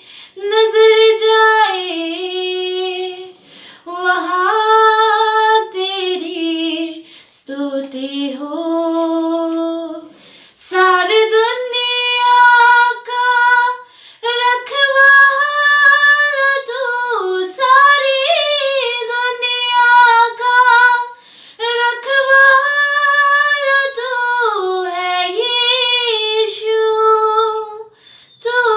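A young woman singing a Hindi Christian worship song solo and unaccompanied, in phrases of a few seconds with short breaths between; the melody climbs higher about ten seconds in.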